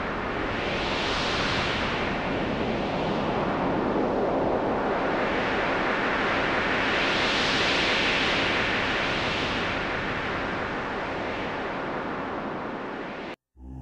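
Rushing water of a motorboat's wake and wind buffeting the microphone, a steady loud hiss that swells twice, about a second in and again around the middle. It cuts off abruptly near the end.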